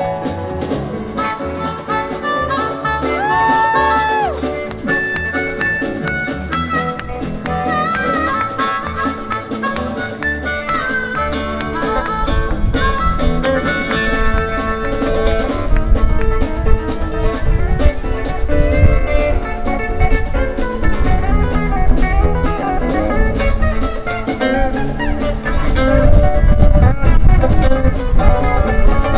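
Live country band playing an instrumental break: lead instruments over bass and drums, the bass and drums growing louder about twelve seconds in.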